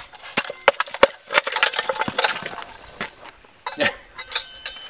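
Bird feeder knocking and rattling: a fast, irregular run of sharp clicks and taps, busiest in the first two seconds and again near the end.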